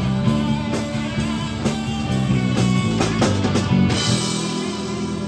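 Live rock band playing the instrumental end of a song: electric guitars and bass holding chords over a steady drum beat. About four seconds in, the drumming stops on a final hit, and the cymbals and chord ring on.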